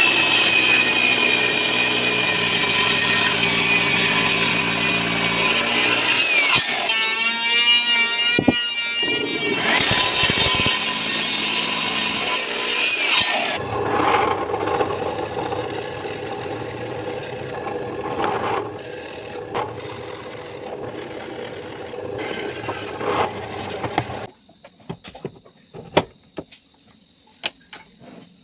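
Drum sander running loudly with a steady pitch, which dips and climbs back briefly about eight seconds in and turns rougher and noisier midway. It stops abruptly about 24 seconds in, leaving a faint steady high whine and a few clicks.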